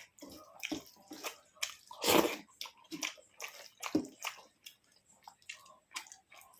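Eating sounds: wet squishing of rice being mixed with curry and dal, and chewing and biting, coming in short irregular bursts.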